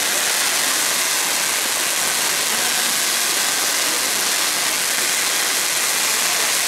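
Set-piece fountain firework (gerb) spraying a column of sparks upward, giving a steady rushing hiss.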